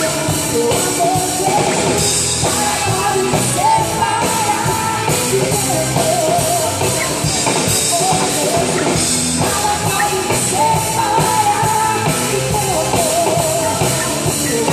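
Live Christian rock band playing an instrumental passage, with drum kit and band under a lead melody line that wavers in pitch.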